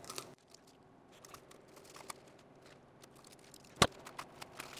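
Masking tape being peeled off a freshly painted cast-iron cylinder head, with a brief crinkle at the start, then faint handling ticks. A single sharp knock a little before the end is the loudest sound.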